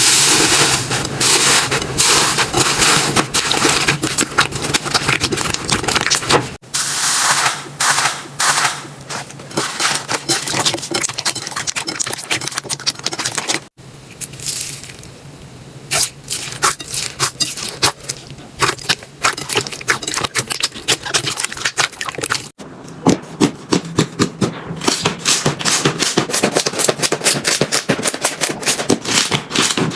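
Slime being squeezed, pressed and poked by hands, giving rapid runs of sticky crackling pops and clicks. The sound cuts off abruptly three times and restarts with a slightly different texture, once a little quieter and softer for a couple of seconds.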